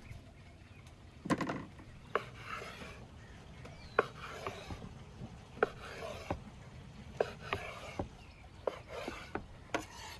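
Knife slicing raw chicken breast on a bamboo cutting board: short scraping strokes of the blade through the meat, each ending in a sharp tap of the knife on the wood, about ten in all at roughly one a second, with a heavier knock about a second in.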